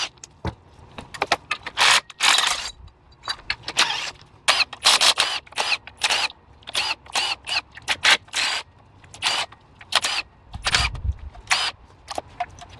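Cordless impact tool firing in many short bursts as it undoes the bolts of the front engine mount bracket, idler pulley and tensioner pulley. Between bursts there are a few dull knocks of metal parts being handled.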